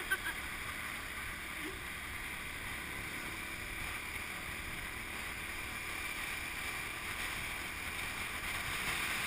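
Steady rush of wind and road noise on a moving motorbike, a little louder near the end.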